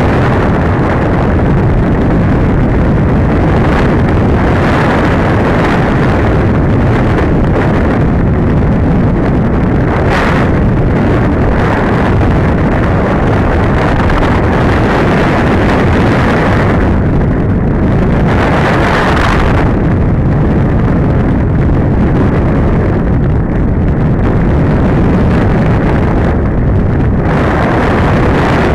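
Loud, steady rush of airflow buffeting the microphone of a camera mounted on a flying RC glider, its hiss brightening and dulling at times.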